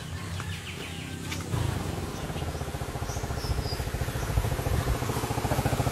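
Motor scooter engine running with a fast, even pulse. It comes in suddenly about a second and a half in and grows steadily louder.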